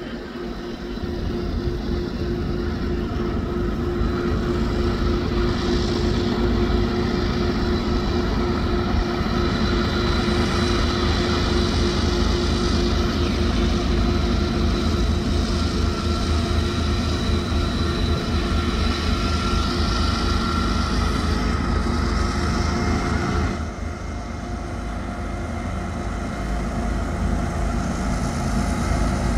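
Diesel-electric freight locomotives of a five-unit BNSF lashup running hard under a heavy load on the grade, a steady deep engine drone with a held tone over it. The sound builds over the first few seconds, drops back about 24 seconds in, then swells again near the end.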